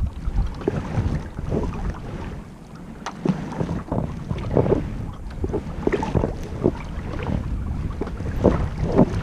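Kayak paddle strokes: the blades dip and splash into calm water at an irregular pace, with drips and swirls between strokes. Wind buffets the microphone throughout.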